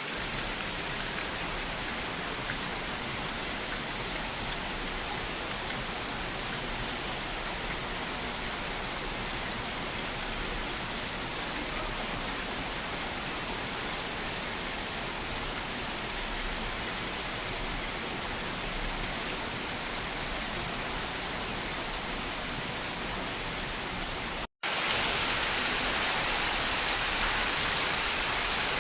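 Waterfall rushing steadily, a dense even hiss of falling water. It breaks off for an instant about three-quarters of the way through and comes back louder and hissier.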